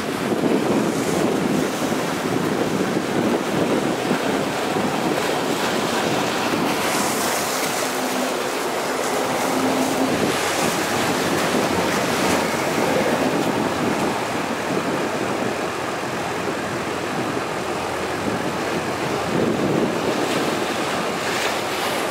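Speedboat under way, with water rushing along the hull and wind buffeting the microphone in a steady, unbroken noise.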